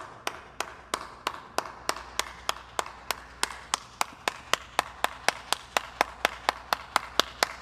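A steady, even run of sharp ticks, about three and a half a second, like a clock ticking, over a faint hum.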